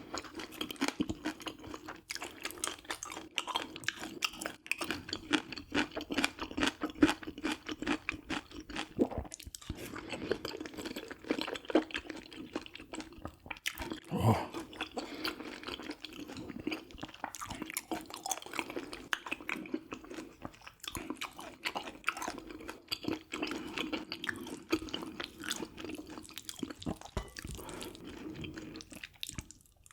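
Close-miked chewing, with many small irregular crunches and wet mouth sounds, as a person eats a mukbang meal of crisp-skinned grilled beef large intestine and noodles. A single louder bite comes about halfway through.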